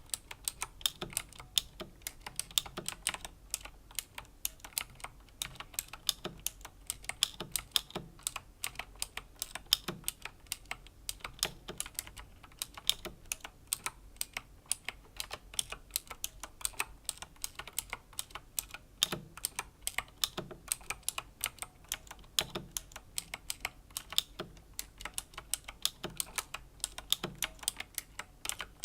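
Razer Green clicky mechanical key switches on a Razer BlackWidow Chroma V2 keyboard, slow typing: a steady, irregular stream of sharp key clicks, several a second.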